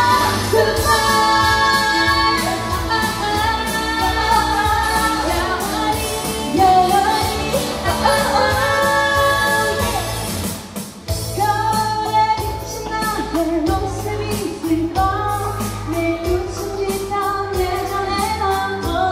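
Two women singing a pop song into handheld microphones over a backing track, amplified through PA speakers. The music drops briefly about eleven seconds in, then carries on.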